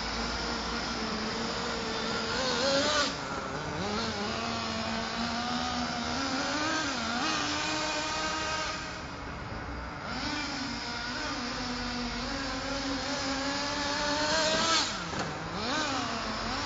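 Nitro glow engine of a GV Mammoth RC monster truck running at varying throttle as it is driven, its pitch wavering up and down. Two sharp bursts to high revs come about three seconds in and near the end, each cutting off abruptly.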